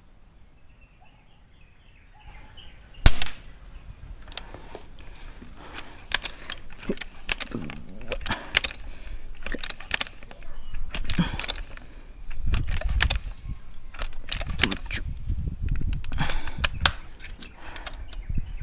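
A multi-pump bullpup air rifle (uklik) fires a 12-grain slug about three seconds in: one sharp crack. It is followed by a long run of clicks and clacks as the rifle is handled and pumped up for the next shot, with heavier strokes near the end.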